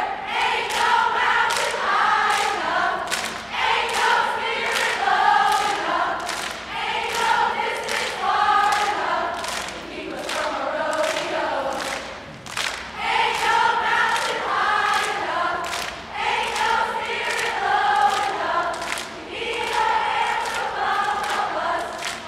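A crowd of voices chanting in unison in short repeated phrases, over a steady beat of sharp strokes about three a second.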